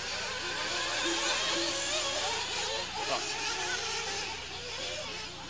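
Several nitro RC buggy engines whining high and revving up and down in overlapping, wavering pitches as the cars race around the track.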